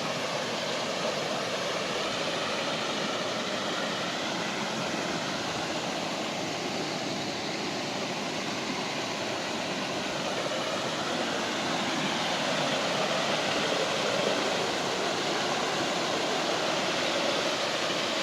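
Waterfall and river water rushing in a steady, even roar, growing slightly louder about two-thirds of the way in.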